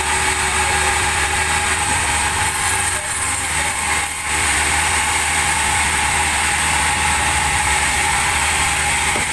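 Sawmill machinery running steadily: a low engine hum under a loud rushing saw noise, which dips briefly about three to four seconds in.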